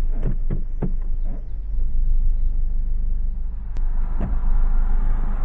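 Jeep driving slowly, heard from inside the cabin: a steady low engine and road rumble with a few short knocks. The tyre noise grows louder near the end as the car rolls onto gravel.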